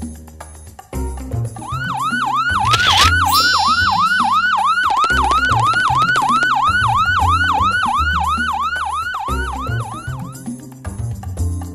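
Police siren in a fast yelp, its pitch rising and falling about three times a second. It starts about a second and a half in and stops shortly before the end, over background music with low bass notes.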